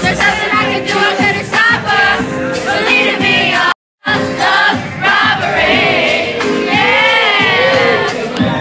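Live concert music with many voices singing along, heard loud from within the crowd. The sound cuts out completely for a split second about four seconds in.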